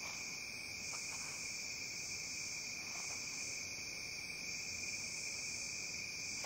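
Night chorus of crickets trilling steadily, an unbroken high-pitched drone.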